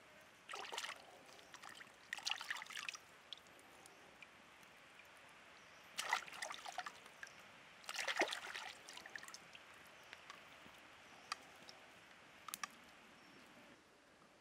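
Hands splashing and rinsing seafood in shallow stream water, in four short bursts, over the steady trickle of the stream. A few sharp clicks near the end.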